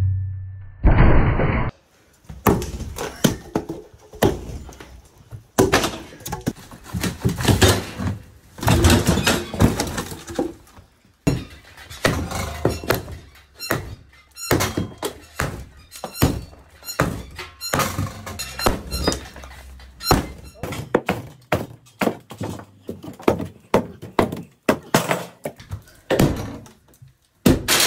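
Sledgehammers striking the ends of old round logs in a log wall: a long, irregular series of heavy wooden thuds and knocks, often several blows a second, as the logs are knocked loose during demolition.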